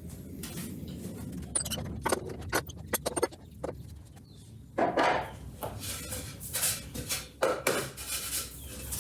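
Wooden workpieces and tools being handled on a workbench: a quick run of sharp clicks and knocks, then louder scraping and rustling noises from about five seconds in. No router is running.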